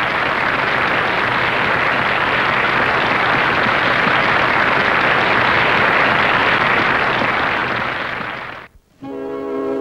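Audience applause, a dense steady clapping that fades away about eight and a half seconds in.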